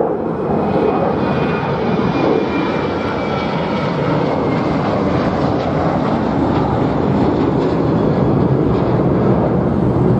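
Airbus A380's four turbofan engines on final approach and landing: a steady jet roar with a whine that slides down in pitch over the first few seconds. The roar carries on through touchdown and rollout.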